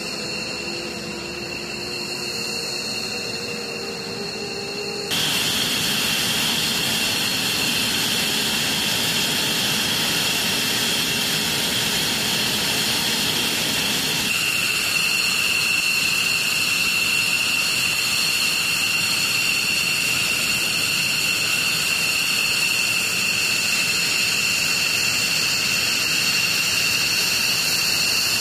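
F-15E Strike Eagle's twin jet engines running on the ground: a steady jet noise with several high-pitched whining tones. It gets louder about five seconds in, and the whine changes pitch about halfway through.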